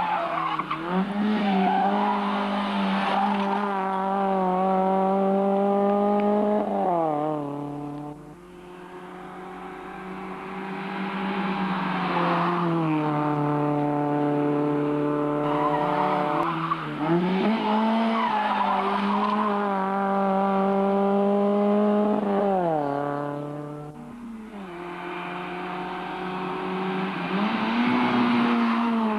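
Rally car engines at hard throttle, the pitch climbing through the gears and dropping at each shift, loud as the cars pass, with the sound falling away twice as one goes by before the next arrives.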